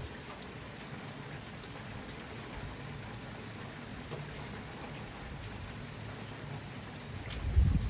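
Steady rainfall, an even hiss of rain coming down, with a few low thumps near the end.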